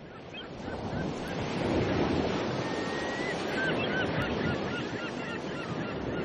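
Sea surf washing, with many short bird calls over it; the whole sound fades in at the start and fades out near the end.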